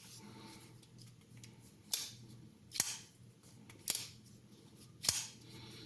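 Four sharp clicks spaced about a second apart, each trailing off in a short hiss.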